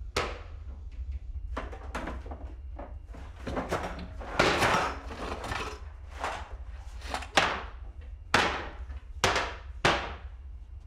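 Kitchen cabinet doors and drawers being opened and shut and kitchenware being handled: about fifteen sharp wooden knocks and clatters at an uneven pace, the loudest in the second half.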